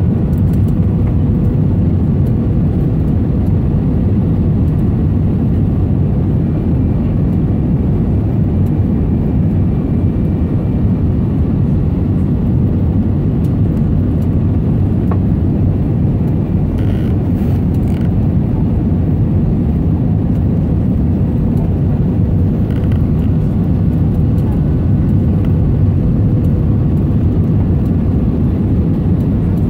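Airbus A320 cabin noise on final approach, heard from a seat over the wing: a steady rumble of the engines and rushing air with a faint steady whine. A few brief faint clicks come about two-thirds of the way through.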